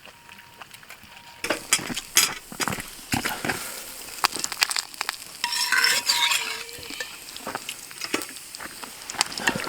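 A utensil stirring and clinking against a pan, with food frying. Irregular clicks and knocks start about a second and a half in, and a louder stretch of hissing comes about halfway through.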